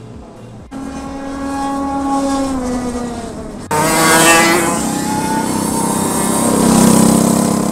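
Racing go-karts running on track. A kart's motor note slowly drops in pitch, then a louder pass comes in about four seconds in, its pitch rising and falling as the kart accelerates and slows.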